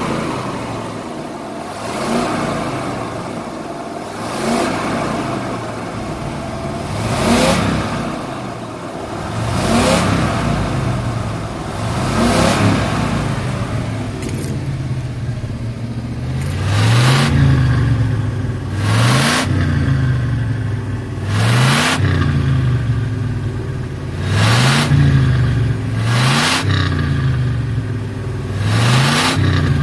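A 1968 Chevrolet Impala's engine and exhaust being revved again and again: about a dozen quick throttle blips, roughly every two and a half seconds, each rising in pitch and falling back to idle. It is heard first from inside the car, then close to the exhaust from about halfway through, where the exhaust note is deeper and stronger.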